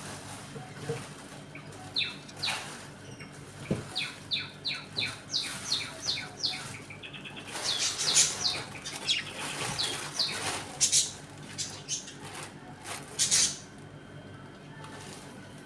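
Pet budgerigars chirping: a run of short, evenly repeated high calls that turns into busier chattering, with a few loud sharp calls near the end.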